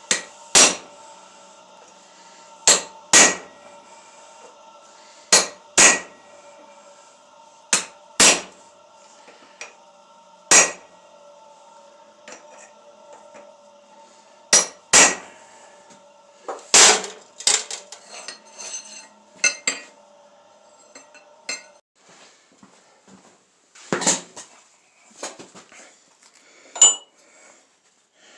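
Hand hammer striking steel on an anvil with sharp, ringing metallic blows, often two in quick succession, at an irregular pace. Under the blows a faint steady hum stops a little past three quarters of the way through.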